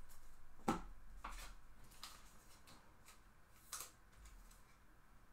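Faint taps and clicks of a trading card being handled and laid on a tabletop. A sharp tap comes about three-quarters of a second in, another near four seconds, and lighter ones between.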